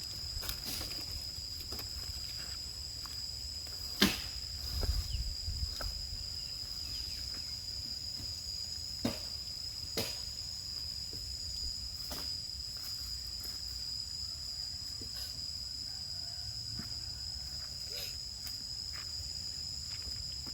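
Steady high-pitched insect chirring, with scattered sharp clicks and knocks; the loudest knock comes about four seconds in.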